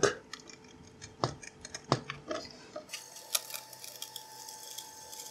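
Scattered light metal clicks and small knocks as a silicon-carbide grinding wheel is fitted by hand onto its metal adapter bushings and the grinder's threaded shaft. The two sharpest clicks come about one and two seconds in, and a faint steady hiss sets in about three seconds in.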